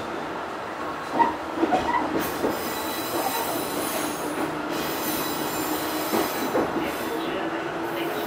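Fukui Railway 200 series electric railcar running along the line, heard from inside the car, with short wheel squeals about one and two seconds in. A steady low tone comes in near the end.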